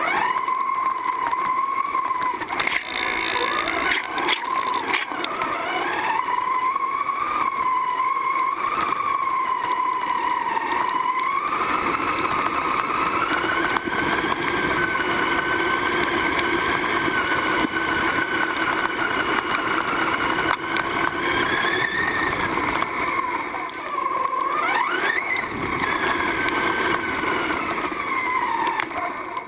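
RC truggy's motor running under throttle as it drives, a continuous whine that rises and falls in pitch with speed, with a quick drop and climb in pitch about three-quarters of the way through.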